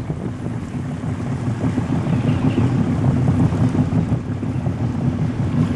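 A small boat's motor running steadily under way, a low even drone with wind and water noise over it.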